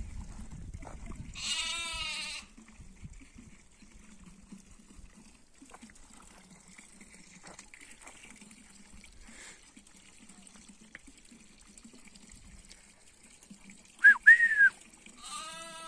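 Sheep bleating twice, each a quavering bleat under a second long, one about a second and a half in and one near the end. Just before the second bleat comes the loudest sound, a sharp, high two-part whistle.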